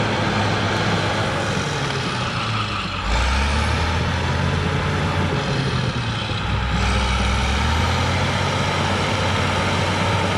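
Cat D6H bulldozer's diesel engine working hard under load as it pushes over a large tree, its deep note shifting lower about three seconds in and again around six and a half seconds.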